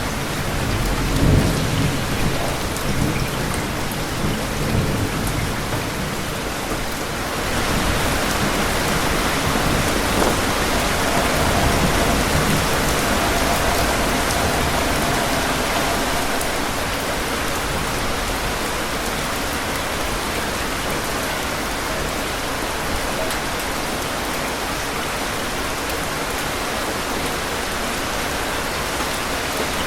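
Thunderstorm: steady heavy rain with low rumbling thunder in the first few seconds. About seven seconds in, the rain grows louder and hissier, then holds steady.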